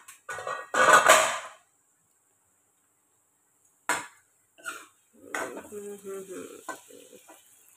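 A loud clatter of metal cookware about a second in, then a sharp knock near four seconds. From about five seconds a steel spatula scrapes and stirs onions and potatoes around an aluminium kadai, with the pan ringing faintly.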